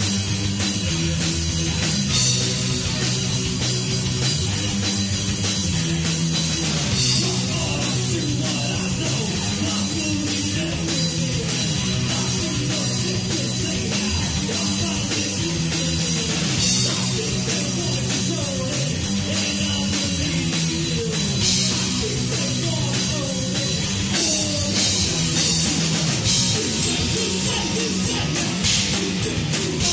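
A rock power trio playing live: electric guitar, electric bass and drum kit, with cymbals crashing every few seconds.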